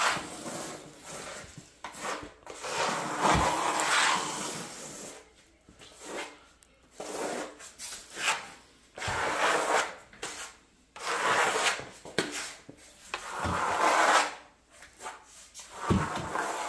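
Notched steel trowel scraping and combing cement-based patching compound (Ardex Feather Finish) across a subfloor to fill a dip, in repeated sweeping strokes about a second long with short pauses between them.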